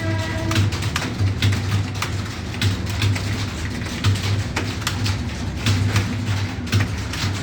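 Typing on a computer keyboard: quick, irregular key clicks, several a second, over a low hum.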